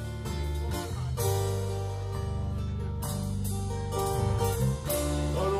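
Live dark folk band playing an instrumental passage: acoustic guitar with a keyboard in a bright, plucked, harpsichord-like voice, the notes changing over a sustained low bass.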